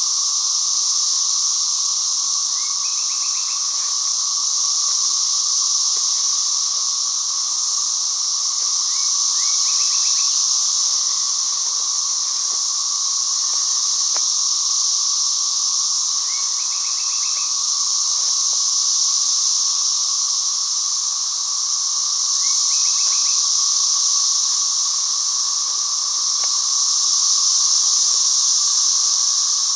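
Loud chorus of cicadas: a steady, high-pitched drone that slowly swells and eases.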